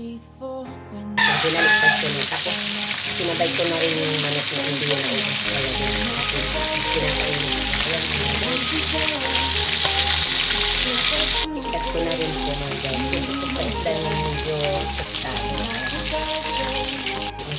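Fish pieces frying in hot oil in a wok: a steady sizzle that starts suddenly about a second in and keeps going, with background music underneath.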